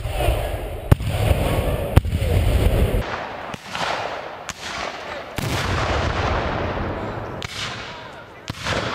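Muzzle-loading field cannons firing: a series of booms about a second or two apart, each trailing off in an echo.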